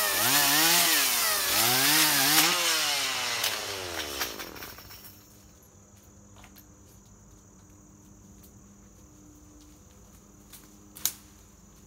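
Stihl MS 170 two-stroke chainsaw revving up and down about once a second while cutting small brush. It then winds down and stops about four to five seconds in, after throwing its chain. After that come only a few faint clicks and one sharper snap near the end.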